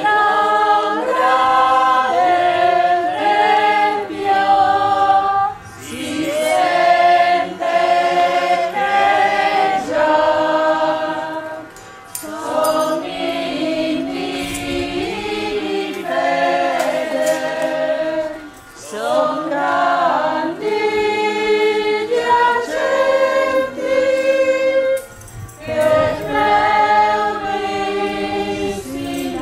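A choir singing a hymn, in sung phrases of several seconds with short breaks between them.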